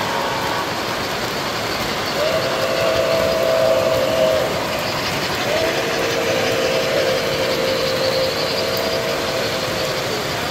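Three-rail O-gauge model locomotive's sound system sounding a two-note train horn signal: one blast of about two seconds, then a longer one of about four seconds, over the steady running noise of the model trains.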